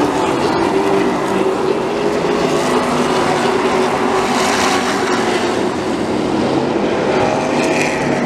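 A pack of late model stock cars racing past, their V8 engines running loud and steady at speed, with the pitch shifting as the cars come through.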